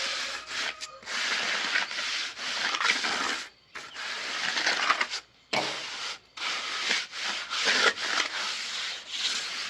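A shovel scraping and turning over a concrete mix in repeated strokes, each one to three seconds long with short pauses between them.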